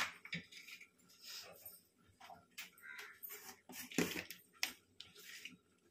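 Faint scattered clicks and rustles of hands and utensils mixing chapati dough in a bowl, with a sharper knock about four seconds in.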